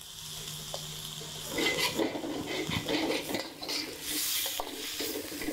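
Metal spatula scraping and clinking against a stainless steel wok while chicken and prawns in spice paste are stir-fried. The stirring picks up about a second and a half in, in irregular strokes.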